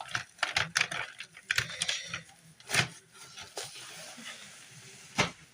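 A plastic CD case and its paper inserts being handled: quick clicks and rustling, with two sharper clicks, one about midway and one near the end.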